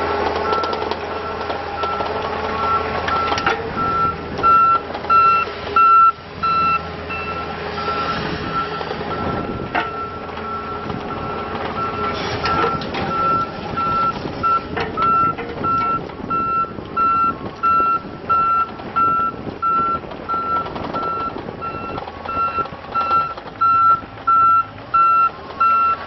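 Travel alarm on a Takeuchi TB153FR mini excavator beeping steadily about once a second as the machine tracks along, over its diesel engine running, with a few short knocks.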